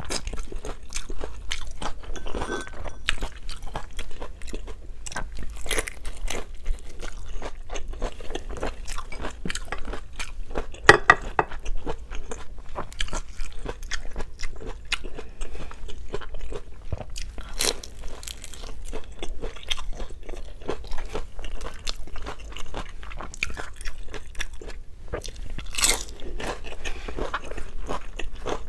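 Crunching and chewing of a crisp fried vegetable spring roll (lumpia): a steady run of irregular crackles as the wrapper breaks, with a sharper crack about eleven seconds in and another near the end.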